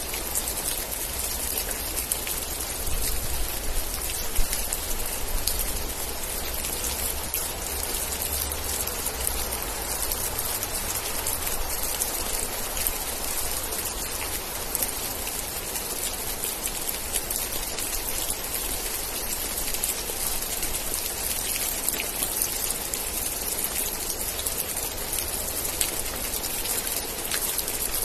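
Steady rain falling, an even hiss with single drops pattering close by throughout.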